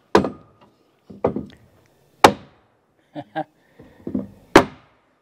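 Hammer striking wooden wall framing: three sharp blows about two seconds apart, with a few softer knocks between.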